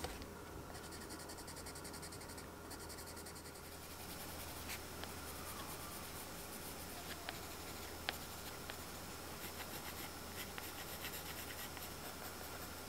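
Coloured pencils shading on drawing paper: a steady run of fine, scratchy strokes, with a few sharper ticks of the pencil tip around the middle.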